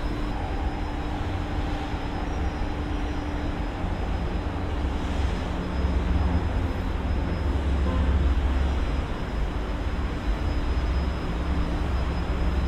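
Steady low rumble of road traffic, with no single passing vehicle standing out.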